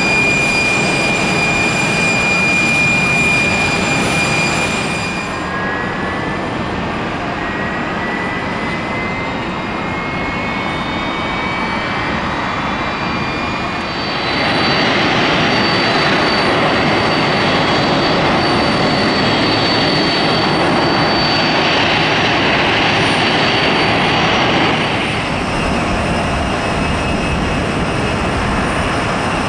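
Boeing 767-400ER's jet engines on the ground during pushback and start: a steady high whine that stops about five seconds in, then several whines rising slowly in pitch as an engine spools up. About halfway through a louder, steady rush of jet engine noise takes over, easing a little near the end.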